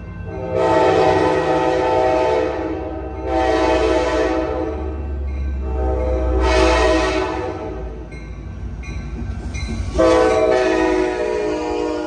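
Horn of an Amtrak F59PHI diesel locomotive sounding four blasts as the train comes in: long, long, a shorter one, then long, the grade-crossing warning pattern. The last blast starts about ten seconds in. Under the horn is the low rumble of the locomotive and train.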